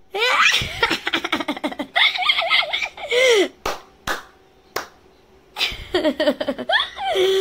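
A young woman laughing hard in long bursts of quick repeated pulses, with a pause in the middle broken by a few short sharp knocks, then laughing again.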